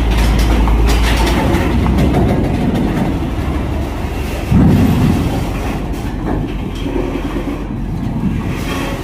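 Heavy vehicle's diesel engine running under throttle as it drives onto a ferry over the steel loading ramp, with a steady clattering rumble and one loud low thud about four and a half seconds in.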